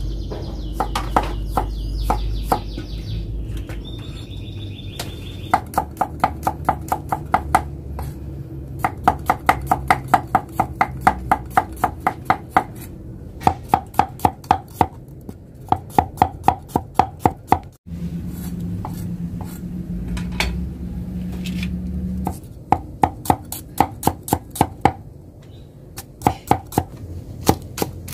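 Broad steel cleaver slicing garlic cloves and shallots on a thick wooden log chopping block: quick runs of knocks, about four or five a second, with short pauses between the runs.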